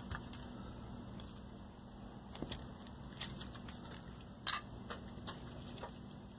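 Light, scattered clicks and taps from hands handling a circuit board and tools, the loudest about four and a half seconds in, over a steady low hum.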